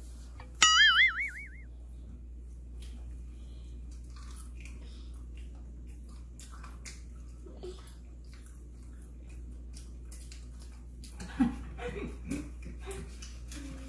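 Small clicks and taps of hands, chicken pieces and dishes at a table during a meal. About half a second in there is a sharp click and then a brief high, wavering squeal, the loudest sound. Near the end comes a short burst of laughter.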